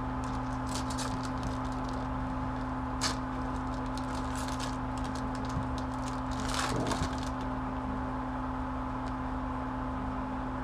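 Trading-card pack wrappers crinkling and tearing and cards being handled: scattered small crackles, a sharp click about three seconds in and a longer rustle near seven seconds, over a steady electrical hum.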